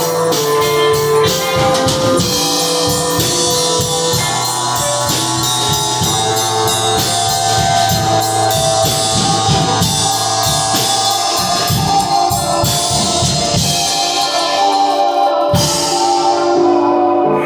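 Live improvised music from a jam session: several held, overlapping tones with a quick, steady rhythm of shaken percussion over them.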